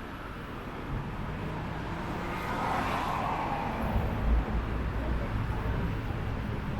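Road traffic on a busy city street, with a vehicle passing close by and growing louder about halfway through.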